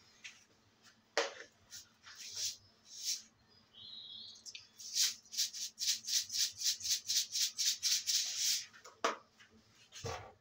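Dishes being scrubbed at a kitchen sink: scattered knocks and clinks, then a run of rapid scrubbing strokes, about five a second, lasting several seconds. There is a brief high squeak about four seconds in.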